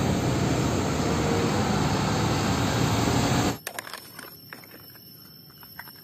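A fuel tanker truck on the road, its diesel engine running under loud, even road noise, cut off sharply about three and a half seconds in. Then faint small clicks and water sounds as toys are handled in shallow muddy water.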